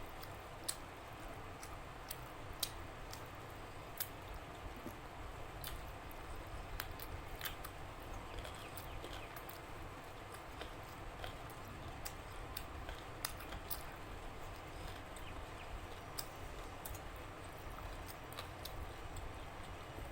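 Close-miked eating sounds: chewing, with irregular sharp mouth clicks and smacks over steady low background noise.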